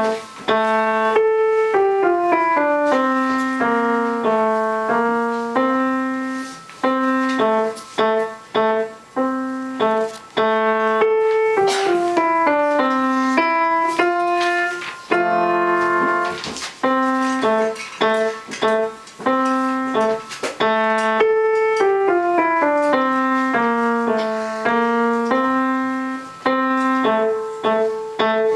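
Grand piano played solo: a fast, lively piece in quick running notes, with brief gaps between phrases.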